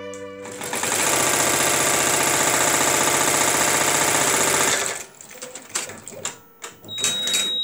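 Multi-needle embroidery machine stitching at speed in a fast, even run of needle strokes, then falling to scattered clicks and knocks about five seconds in. A steady high beep sounds near the end.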